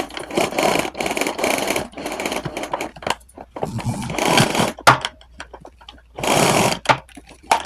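Retractable power cord of a canister vacuum cleaner being pulled out of its reel in several pulls, the cord rattling and scraping through the housing, with a few sharp clicks between pulls.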